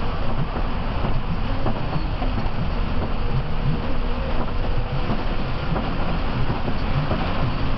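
Steady cabin noise of a Mercedes-Benz OH 1526 coach under way on a rain-soaked road: a continuous low rumble of engine and tyres on the wet surface.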